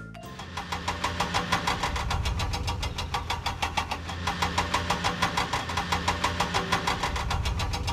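Vehicle engine sound effect in a toy-truck cartoon: an engine chugging steadily at about six beats a second.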